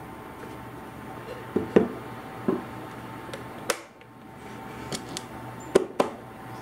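Oak box's wooden lid knocking shut, then its small brass latch clicking as it is fastened: a few dull knocks, one sharp click partway through and more light clicks and taps near the end, over a faint steady hum.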